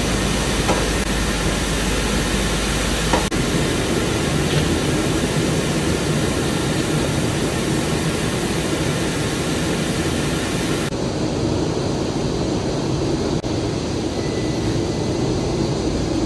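Steady rushing noise of a grain dump: shelled corn pouring out of a grain truck's hopper gates into the pit, with the truck and the facility's machinery running. The sound turns abruptly duller about eleven seconds in.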